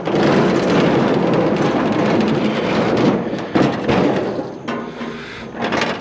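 A two-wheeled grill being wheeled and dragged over the ground: a continuous rumbling scrape for about three and a half seconds, then stopping and starting with a few knocks.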